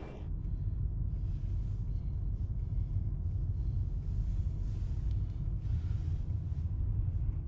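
Low, steady rumble of a moving car heard from inside the cabin: engine and road noise.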